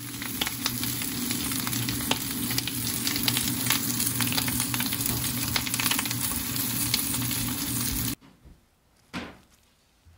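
Pieces of hairtail sizzling and crackling in hot oil in a pan: a dense, steady hiss with many small pops. It cuts off suddenly about eight seconds in, and a faint soft knock follows about a second later.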